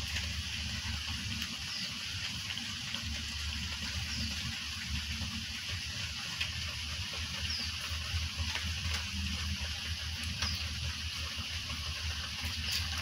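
A nursing mother cat purring in a steady low rumble, with the wet suckling of kittens feeding at her belly. A few faint short high chirps come through every couple of seconds.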